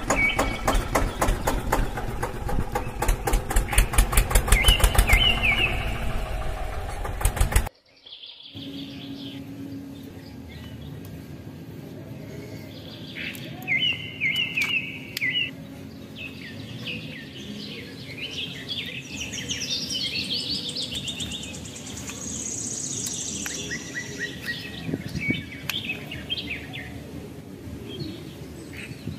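Toy tractor's small DC-motor 'engine' running with a rapid, rhythmic chugging that grows louder, then cuts off abruptly after about eight seconds. After that, birds chirp repeatedly over a quiet outdoor background with a faint low hum.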